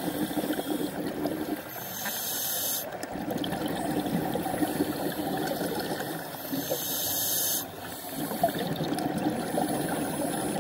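Underwater scuba breathing: the regulator hisses on two inhalations about four seconds apart, and between them exhaled bubbles bubble and crackle steadily.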